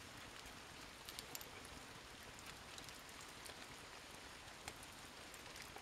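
Faint, steady rain falling, with scattered light ticks of drops.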